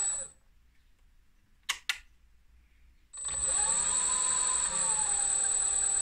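Mini lathe driven by an SK3 6374-149KV brushless outrunner motor: its whine cuts off right at the start, two quick switch clicks follow just under two seconds in, and about three seconds in the motor starts again and spins up, its whine rising in pitch and then settling a little lower and steady.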